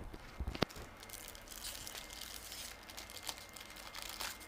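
Foil wrapper of an Adrenalyn trading-card packet crinkling as it is opened and the cards are pulled out, with a few sharp clicks in the first second and steady rustling after.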